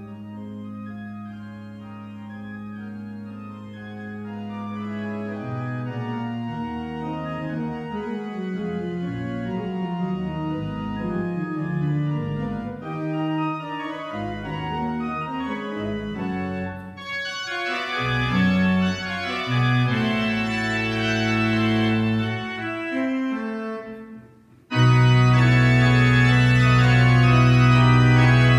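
Organ playing: a soft held chord, then moving lines of notes over a held bass. A little before the end the sound drops almost to nothing, then a much louder full chord comes in and is held.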